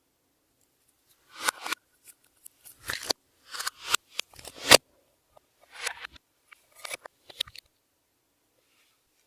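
Clear slime being squeezed and worked by hand, with sticky squishing and crackling in short bursts that swell and then cut off sharply, about five clusters with pauses between them.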